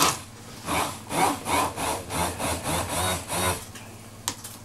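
Hand-held immersion blender puréeing asparagus, spinach leaves and cream in a tall plastic beaker: a sharp knock at the start, then the motor note rises and falls about three times a second as the blade is worked through the mix, stopping briefly near the end before a second click.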